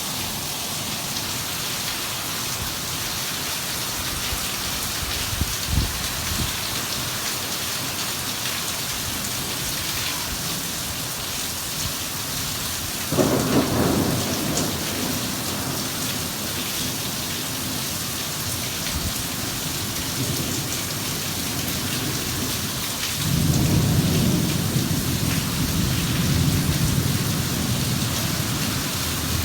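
Rain falling steadily during a thunderstorm. About halfway through comes a sudden crack of thunder. Later a low rumble of thunder rolls on for several seconds.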